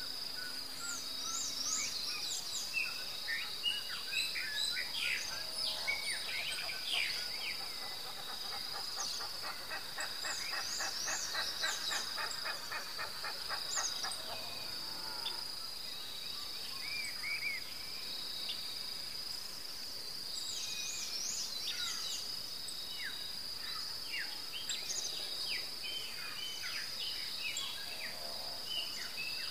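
Outdoor ambience of many birds chirping and calling over a steady high-pitched insect drone, with a rapid pulsing trill lasting several seconds around the middle.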